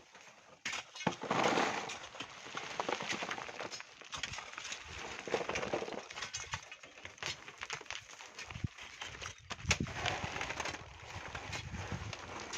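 Hand tools digging into volcanic sand and stone: irregular knocks and scraping.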